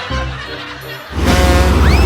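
Music, cut off a little over a second in by a loud, sudden vehicle engine rumble, with a short rising tone near the end.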